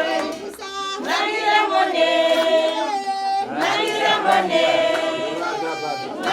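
Several voices singing together in a choir-like song, in phrases of a couple of seconds with short breaks between them.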